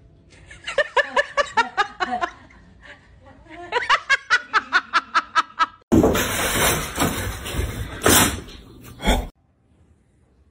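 A person laughing in two runs of quick, evenly spaced bursts. About six seconds in, the laughter gives way to a loud stretch of rough noise lasting about three seconds, which stops abruptly.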